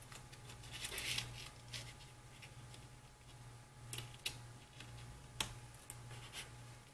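Hands handling and folding tape-joined wooden box sides into a square frame: soft rustling of painter's tape and wood, with a few light sharp clicks as the corners meet, over a steady low hum.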